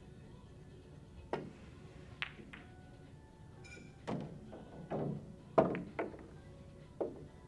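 Pool balls and cue in play: a run of sharp clicks and heavier knocks, about nine in all, the loudest about five and a half seconds in.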